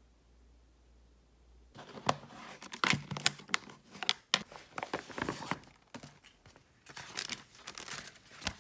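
Clear plastic wrapping crackling, crinkling and tearing as it is pulled off a paperback workbook, a busy run of sharp crackles starting about two seconds in.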